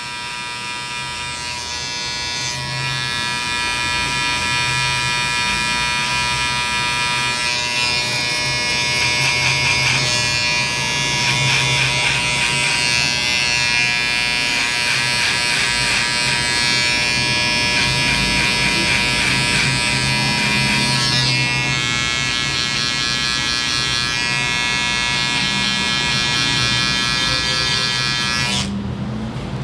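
Cordless electric hair clipper buzzing steadily as it cuts hair over a comb and trims around the ear.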